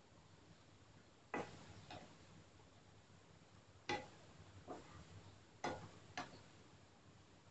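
Spatula knocking and scraping against a non-stick frying pan while stirring shredded cabbage: about six sharp taps, roughly in pairs, with the loudest about a second and a half in, about four seconds in and near six seconds.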